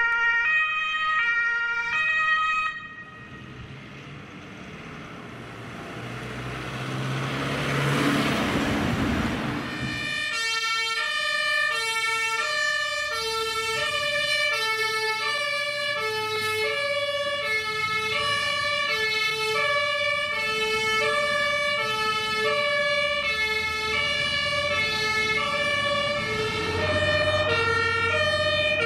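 German two-tone emergency-vehicle sirens (Martinshorn) on fire and rescue vehicles responding. A two-tone siren sounds briefly at the start. Then a vehicle's engine and road noise build and pass with no siren. From about ten seconds in, a two-tone siren steadily alternates between a high and a low pitch over the hum of vehicle engines.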